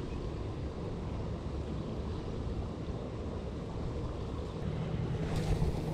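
Wind buffeting the microphone over a steady hiss of rain. A low steady hum comes in during the second half, and a short rustle sounds near the end.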